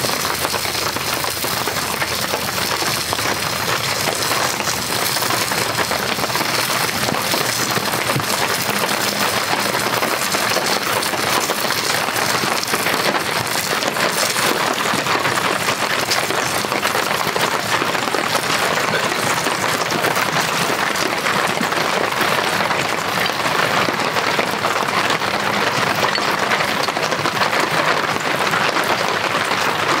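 Heavy rain falling steadily on the tent.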